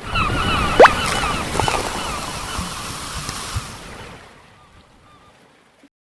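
Surf or ocean waves with many birds calling over them, fading out over the last two seconds. A short rising whistle about a second in is the loudest sound.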